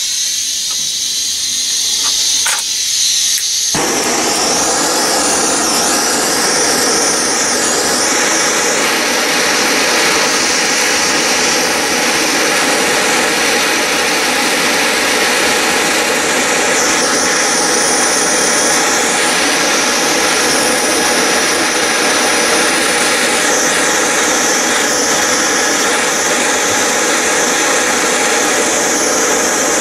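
Gas blowtorch flame burning steadily, heating the brass handle and piston bar so solder can be run into the joint. A thin hiss fills out into a full, steady rushing noise about four seconds in.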